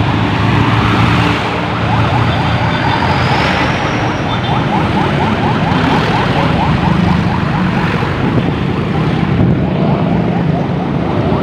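Road traffic heard from a moving motor scooter: its engine running steadily under wind noise, with trucks and other motorbikes running close by.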